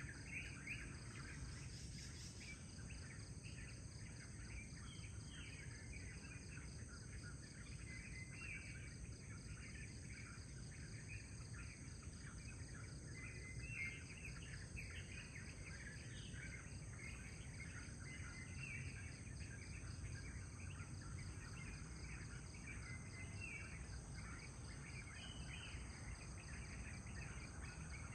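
Faint dawn chorus: many short bird chirps and calls, scattered throughout, over a steady high-pitched insect buzz, with a low background rumble underneath.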